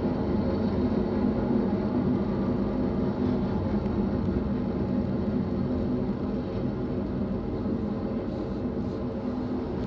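BNSF double-stack intermodal freight train rolling past: a steady rumble with a low hum that eases slightly in level. A short sharp click comes right at the end.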